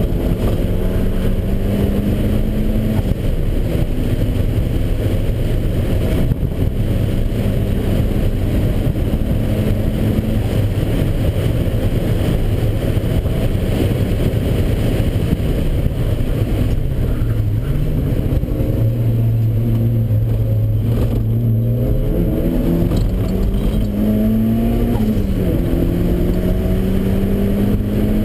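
Turbocharged Mazda Miata's four-cylinder engine (Garrett 2870 turbo at about 10 psi), heard from inside the cabin under hard track driving. The note climbs slowly under load and falls back sharply twice. In the middle it settles to a lower steady note, then revs up again, over heavy road and wind noise.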